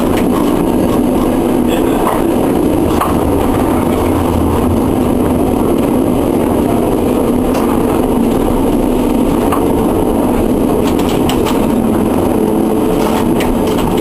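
Historic tram running along street track, heard from inside the driver's cab: a steady running noise with scattered clicks and knocks, and a motor hum that comes back near the end.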